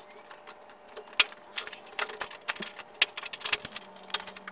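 Plastic push clips and a plastic air-deflector panel being pried and pulled off: irregular clicks, snaps and light rattles, with one sharp snap about a second in.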